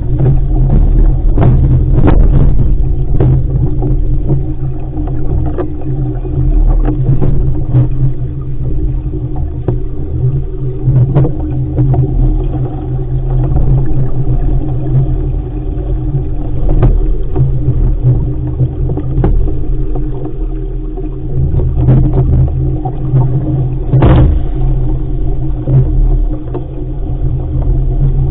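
Loud, steady wind rumble buffeting the microphone aboard a sailing dinghy under way, with sharp knocks now and then; the loudest knock comes near the end.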